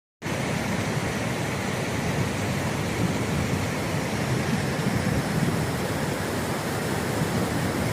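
Rushing water making a steady, loud rush with no pauses, heaviest in its deep part, starting just after the opening.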